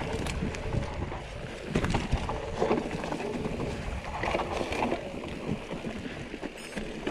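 Mountain bike riding a rough trail: continuous wind rush on the microphone over the low rumble and rattle of the tyres and frame.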